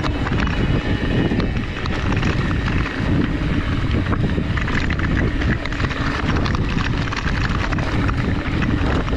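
Mountain bike riding on a dirt trail: wind rushing over the microphone, with tyre noise and the bike's frequent rattles and clatters.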